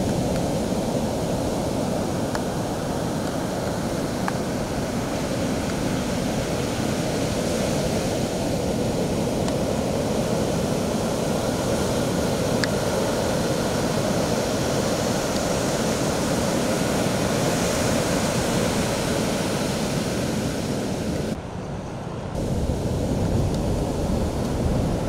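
Steady roar of ocean surf breaking on a sandy beach, mixed with wind on the microphone; it dips briefly near the end.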